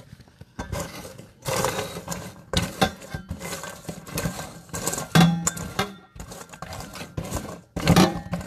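A spoon stirring lye into frozen goat's milk, scraping and clinking in irregular bursts against the frozen chunks and the container.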